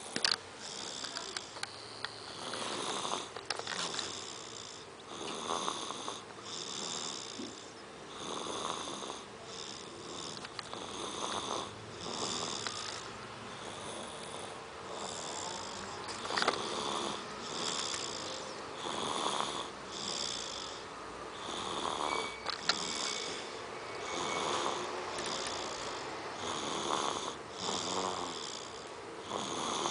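Snoring in sleep: a steady run of rhythmic snores, about one every second and a half.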